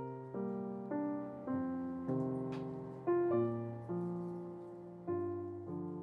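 Soft background piano music: slow chords, each struck and left to fade before the next.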